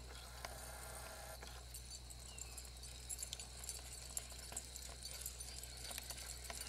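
Light pattering and clicking of three dogs' paws on asphalt with faint jingling of tags and leash clips, becoming busier about halfway through, over a steady low hum.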